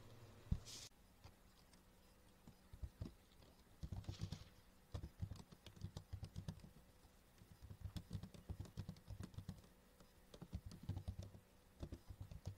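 Quiet typing on a computer keyboard: runs of quick keystrokes with short pauses between them.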